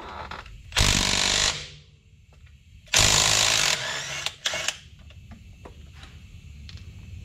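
Impact wrench hammering in two bursts of just under a second each, about two seconds apart, breaking loose the bolts of a semi truck's carrier bearing saddles. A short sharp knock follows.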